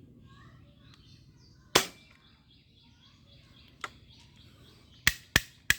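Toy air gun firing sharp snapping shots: one loud shot about two seconds in, a faint click near four seconds, then three quick shots near the end. Birds chirp faintly in the background.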